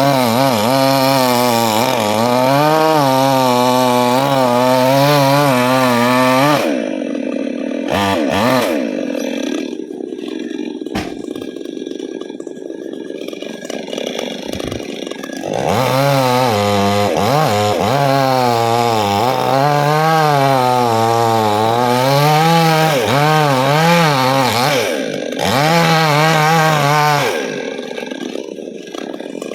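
Chainsaw cutting into a coconut tree trunk, its engine running hard with a wavering pitch under load. About six seconds in it drops back to a quieter, steadier idle for several seconds. It then revs up and cuts again before settling back near the end.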